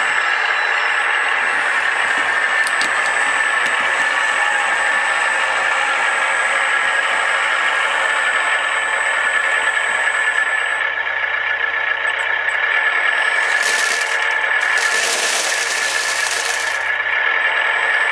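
Radio-controlled scale construction vehicle running: a steady high whine of its electric drive and gearing. About 13.5 s in, and again from about 15 to 17 s, short bursts of hiss cut in.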